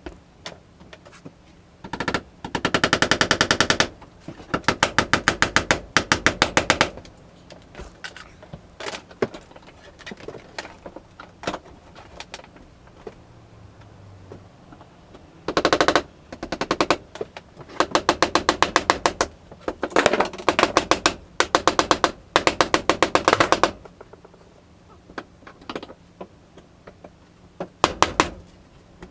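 Power driver running in short bursts of one to two seconds, about ten times over. Each burst is a fast, even rattle of hammer blows, typical of an impact driver sinking screws into wood framing.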